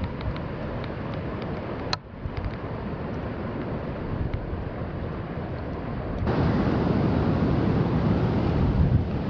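Wind buffeting the microphone, a steady rumbling rush with no other clear sound. There is a single sharp click about two seconds in, and the wind gets louder about six seconds in.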